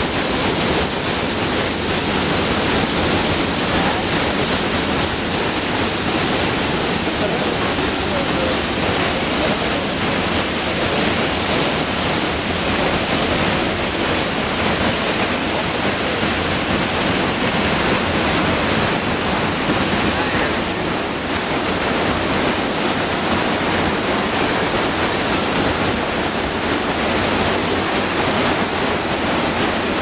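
Steady roar of white water from the Salto de Eyipantla waterfall and the rapids below it, an even rushing noise that holds at one level throughout.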